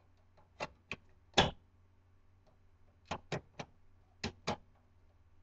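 Plastic clicks and knocks as an 80 mm case fan is pushed and fitted into its mount in a steel computer case: about eight short clicks in small groups, with a stronger knock about a second and a half in.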